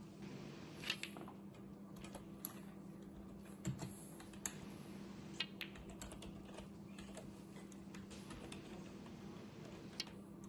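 Faint, scattered sharp clicks of snooker play: the cue tip striking the cue ball and the balls knocking together, a few seconds apart, over a steady low hum.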